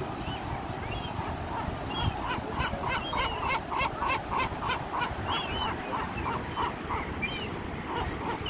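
Gull calling a long run of short, repeated honking notes, about three a second, for about five seconds, with other gulls giving single short cries around it.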